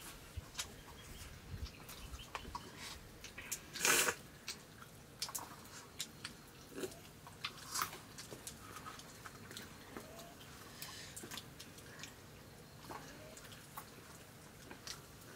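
Hand-eating at a meal: fingers scooping rice from steel plates with scattered light clinks and taps, and chewing. One louder clatter comes about four seconds in.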